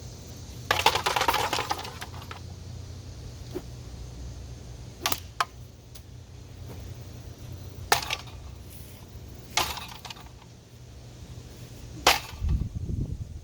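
A Craftmade Decorative ceiling fan being smashed: a clattering crash about a second in, then four sharp single hits a few seconds apart and a dull low thud near the end. A steady low hum runs underneath.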